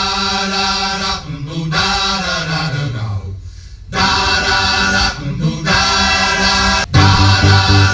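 A song with voices singing together, played through the car stereo and its new Focal component speakers and heard inside the cabin. The singing dips and falls away about three seconds in, and a heavy bass comes in near the end. The owner finds the system's top end a little scratchy and blames the factory head unit's output.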